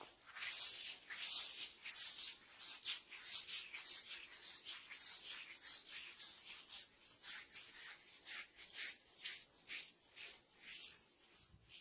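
Hands rubbing and massaging a person's hair and scalp in quick strokes, a dry hiss about two times a second that grows fainter near the end.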